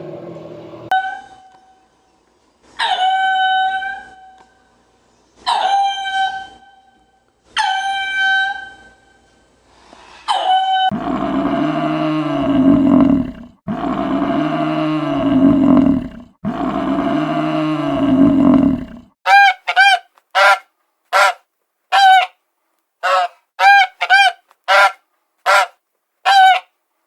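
A series of honking bird calls: several separate honks, then three long drawn-out calls of about two seconds each, then a quick run of about a dozen short honks.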